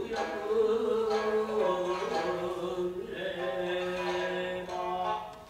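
A man chanting jōruri narration for a Japanese puppet play, singing long, wavering held notes with the pitch sliding down about a second and a half in.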